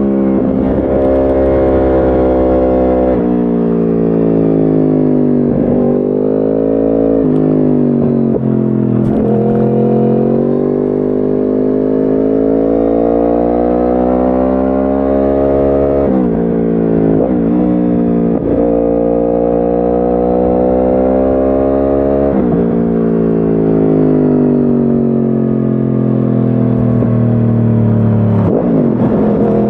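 2010 Yamaha R1 crossplane inline-four with a decatted Akrapovic exhaust, heard onboard while riding: the engine note climbs in long rising sweeps as the bike accelerates, broken by several sudden drops in pitch at gear changes.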